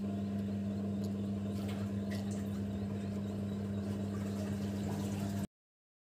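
Twin-tub washing machine's wash motor running with a steady hum, water churning in the tub. The sound cuts off abruptly about five and a half seconds in.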